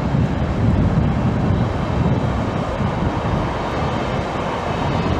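A passenger train of coaches rolling past: a steady rumble of wheels on rails, easing slightly after the middle.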